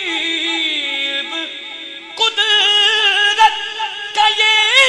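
A man singing a naat through a microphone, drawing out long, wavering melismatic notes with no clear words. A held note slides down in pitch over the first two seconds, then a louder new phrase begins.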